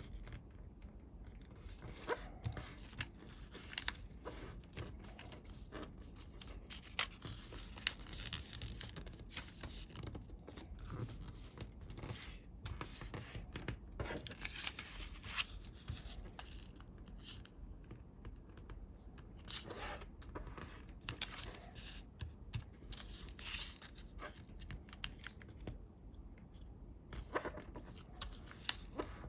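Sheet of coloured origami paper being handled, folded and creased by hand: irregular rustling and scraping with frequent sharp crisp clicks as folds are pressed down.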